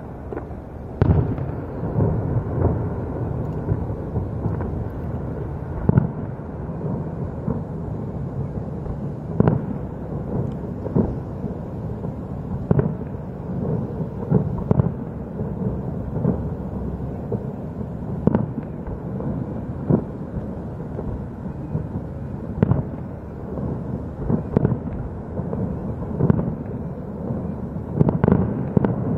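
Distant fireworks display: a string of booms and bangs, one every second or two, heard over a steady low rumble.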